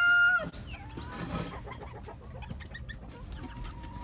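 Backyard chickens: a rooster's crow ends about half a second in, followed by scattered clucks and short calls from the hens, and a longer held call near the end.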